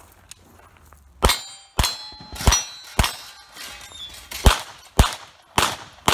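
Pistol shots fired in an uneven string, about eight in five seconds. Metal targets ring with a high, lingering tone after a few of the hits.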